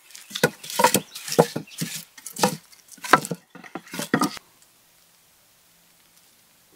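A quick, irregular run of about a dozen crunching knocks over some four seconds.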